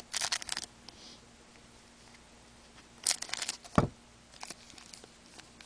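Foil wrapper of a hockey card pack crinkling and tearing as it is opened, in two short bursts, one at the start and one about three seconds in. A soft low thump follows the second burst, then a few light clicks of cards being handled.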